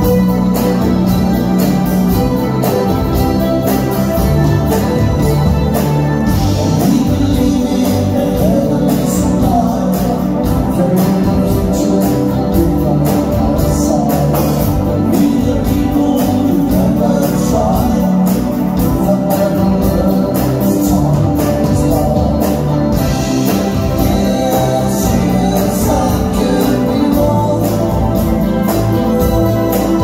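Live rock/pop band playing amplified on stage: electric guitar, keyboards, bass and drums, with a male lead vocal singing into the microphone.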